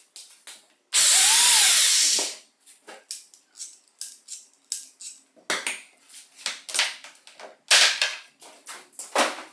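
An angle grinder's motor runs loudly for about a second, its pitch rising then falling away, followed by a quick series of short clicks and scrapes.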